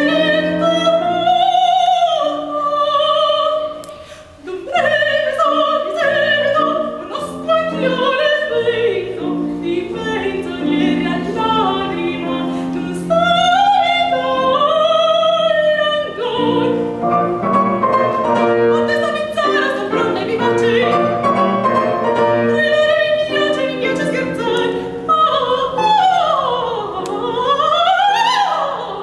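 Female operatic soprano singing an aria with wide vibrato, accompanied by a grand piano. Near the end the voice sweeps quickly down and back up in pitch.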